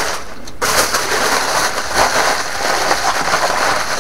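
Meat sizzling and crackling on a hot barbecue grill, a dense steady crackle that starts suddenly about half a second in.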